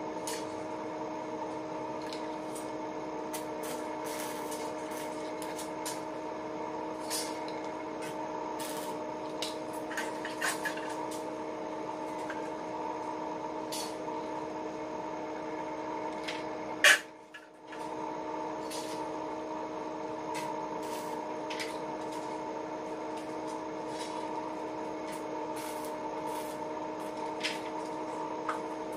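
Steel bars clinking and tapping now and then as they are handled and laid into a welding jig for a window grille, with one louder clack a little past halfway, over a steady hum in the workshop.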